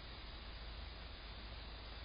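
Faint, steady hiss of room tone picked up by a Blink security camera's microphone, with no distinct sounds.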